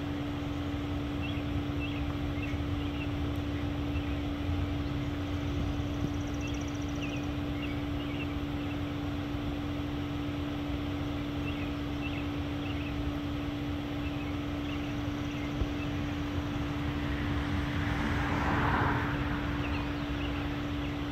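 Outdoor ambience while a Federal Signal 2001-SRN siren turns without sounding on a silent test: no siren wail. There is a steady low hum and a rumble of wind, small birds chirp here and there, and a rushing noise swells and fades near the end.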